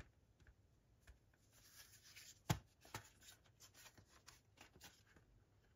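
Near silence with faint handling noises of a Blu-ray steelbook case: scattered light clicks and a soft rustle, with one sharper click about two and a half seconds in.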